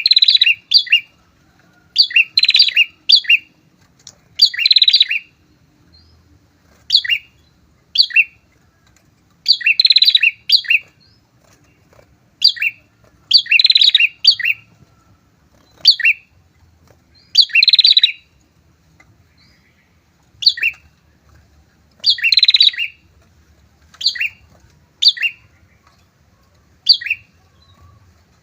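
A pair of prinias (prenjak) calling: loud, sharp chirps repeated every second or two, some coming singly and some in dense runs where the two birds' calls overlap.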